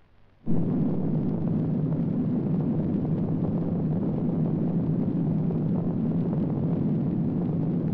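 Film sound effect of a nuclear explosion: a rumbling blast that starts suddenly about half a second in and then holds steady, with a low tone sustained underneath.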